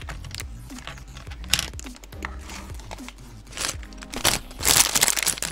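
Clear plastic bag of LEGO bricks crinkling as it is handled, with small plastic pieces clicking and rattling against one another. The loudest crinkle comes near the end. Background music plays quietly underneath.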